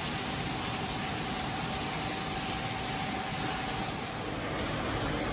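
Steady, even hiss of indoor room ambience. A faint steady tone fades out about three and a half seconds in.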